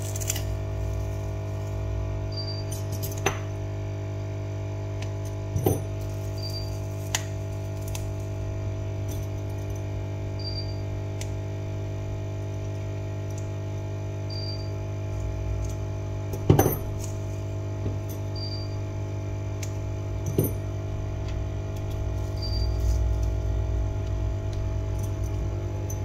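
A few scattered sharp small clicks and taps, as of metal repair tools on a smartphone's parts, the loudest about 16 seconds in, over a steady hum and soft background music.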